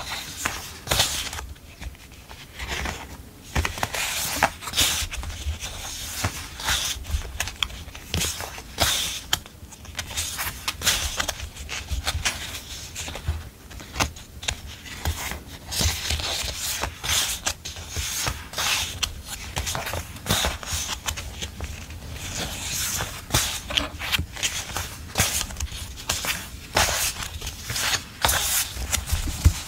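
Sheets of memo-pad paper rustling and sliding against each other as they are leafed through and fanned out by hand, in many short, irregular strokes.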